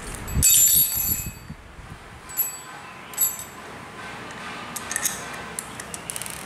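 Metal parts being handled: a thump and a clink with brief ringing about half a second in, two more short ringing clinks, then a run of small clicks about five seconds in, as screws and a hex key go into the red plastic handle clamp on the brush cutter's aluminium shaft.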